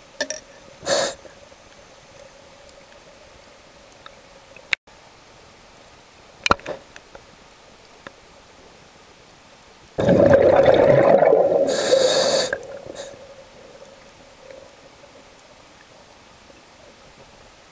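Scuba diver breathing through a regulator underwater: a short hiss of inhalation about a second in, then about ten seconds in a loud rush of exhaled bubbles lasting about two and a half seconds, with a high hiss near its end. A couple of sharp clicks fall in between.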